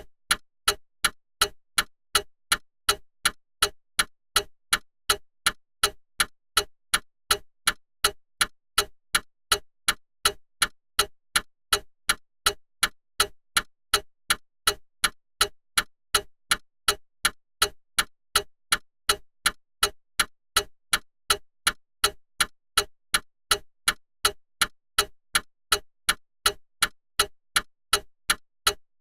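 Clock ticking: an even, unbroken run of sharp ticks at a steady level.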